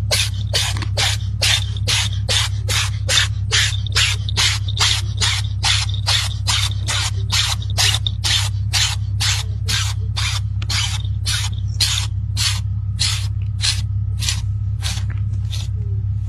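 An animal sneezing over and over in quick, even succession, about two to three short sneezes a second, with a steady low hum beneath.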